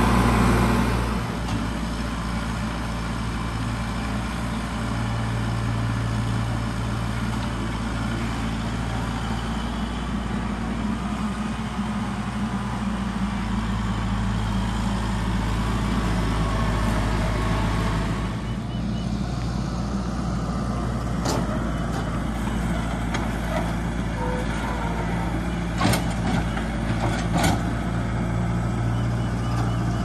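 Kubota tractor's diesel engine running steadily, with a few sharp clanks about two-thirds of the way through.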